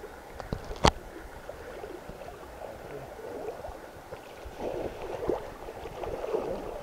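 Water swishing and splashing as someone wades knee-deep through a shallow river, growing louder in the second half as a cast net is thrown out over the water. A single sharp click about a second in.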